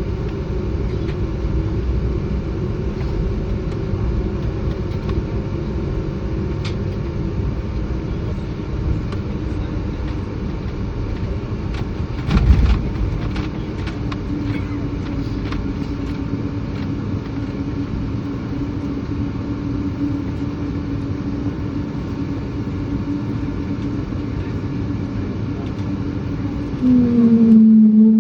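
Cabin noise in an Embraer 195-E2 airliner: a steady, loud jet-engine roar with a low droning tone, and a short thud about halfway through. Near the end the roar drops away abruptly and a low moaning tone bends up and down in pitch, the E2's so-called 'whale sound'.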